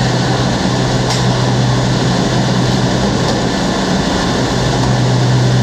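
Steady loud drone of a ship's engine room with its diesel generators running, a constant low hum over a wide even roar of machinery and ventilation.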